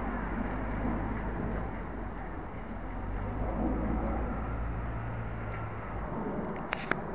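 Outdoor city traffic noise: a steady rumble with a low engine drone that stops about six seconds in. Two short clicks near the end.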